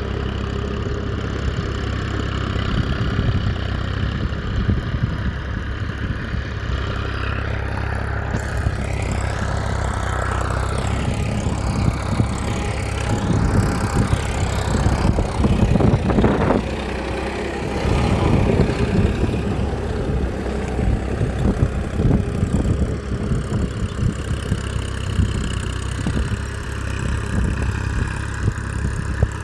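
A motor running steadily, getting louder and rougher for several seconds in the middle before settling back to an even hum.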